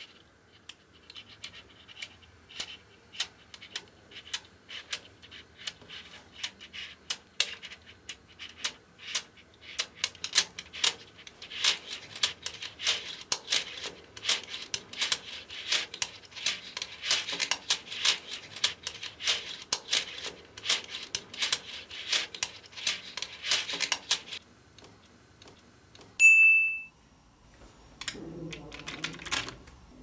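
Small magnetic balls clicking as they snap together one by one: a fast, irregular run of sharp clicks that grows denser and louder in the middle and stops near the end. A single short high ring follows, then a low rubbing sound with a few clicks.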